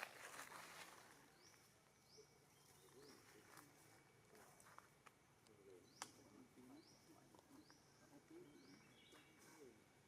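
Near silence: faint outdoor ambience with a short rising chirp repeated about once a second, and a single sharp click about six seconds in.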